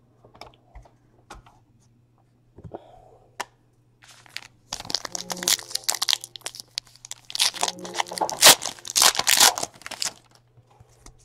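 Foil wrapper of a 2016 Panini Elite Extra Edition baseball card pack crinkling and being torn open by hand. A few light handling taps come first, then a dense run of crackling and tearing from about five seconds in until near the end.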